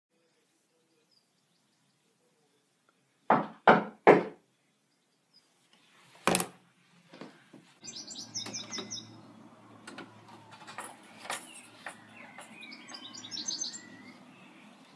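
Three loud knocks on a wooden front door in quick succession, then a single thud a couple of seconds later. Then birds chirping over a low steady outdoor hum, with a few sharp clicks.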